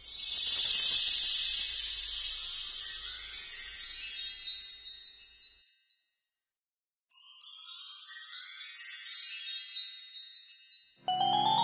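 Magic-wand sparkle sound effect: a bright, high tinkling shimmer that fades away over about five seconds, then after a second of silence a second twinkling cascade that steps downward in pitch. Pitched music notes begin near the end.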